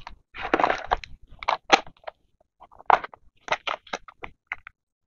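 Paper being handled: irregular bursts of crinkling and rustling, with small sharp clicks.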